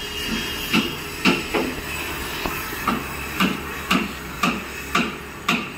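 Drum of a wedding procession beating steadily, about two strokes a second, over a steady background hiss.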